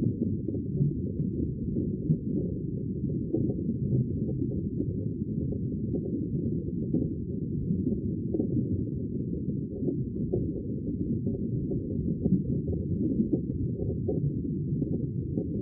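Sea water heard as a steady, muffled low rumble, with no separate waves rising and falling and faint small crackles throughout.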